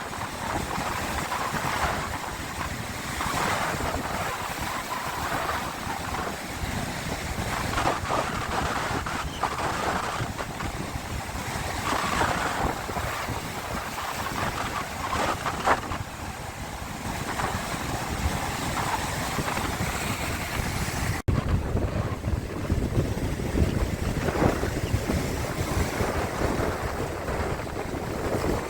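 Sea waves washing in and out in uneven swells, with wind buffeting the microphone as a low rumble. A split-second dropout about two-thirds of the way through.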